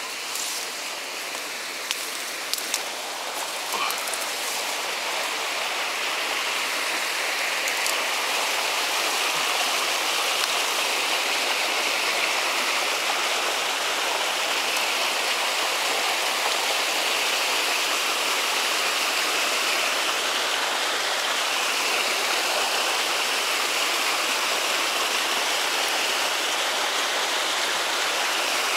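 Water rushing steadily, like a stream or the outflow at a small weir. It grows louder over the first several seconds and then holds steady. A few light clicks come in the first few seconds.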